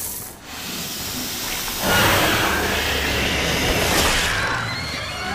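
Film sound effect of a giant snake hissing loudly over a low rumble, starting suddenly about two seconds in and easing off near the end.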